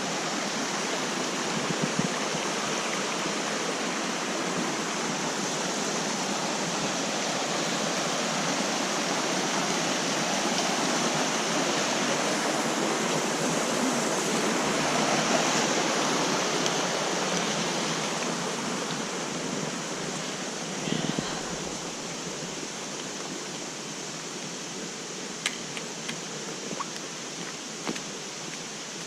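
Mountain stream rushing over rocks, a steady water noise that eases somewhat past the middle. A few faint clicks come near the end.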